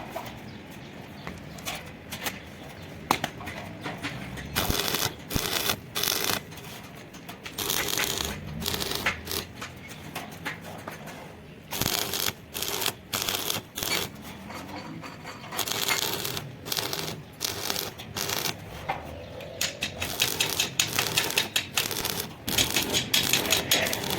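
Arc welding on iron: the arc crackles in a string of short, irregular bursts, each a fraction of a second long, like tack welds being struck one after another, and comes thickest near the end.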